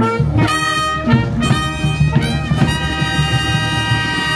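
Brass band playing a short fanfare of trumpets and trombones, a Tusch after a speech: several short chords in quick succession, then a long held chord from about three seconds in.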